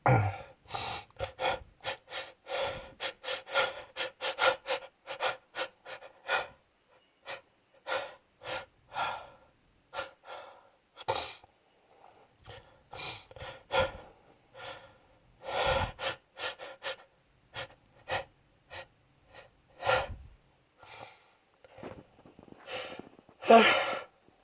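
A man's short, sharp breaths and gasps during a pollen-triggered allergy sneezing fit, a quick run of them at first, then spaced gasps as another sneeze builds, the loudest near the end.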